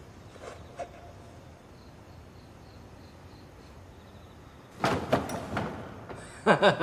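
Faint chirping of crickets, then about five seconds in a loud clatter of knocks and rattles from a wooden door being pushed open.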